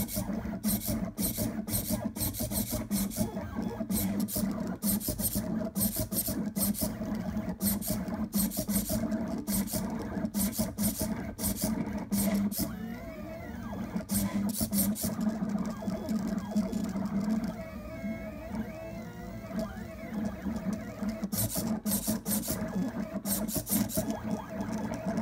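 Fast pen plotter's stepper motors running, a steady low hum under quick short strokes of high hiss several times a second. Twice around the middle the strokes give way to whines that glide up and down in loops as the pen traces curves.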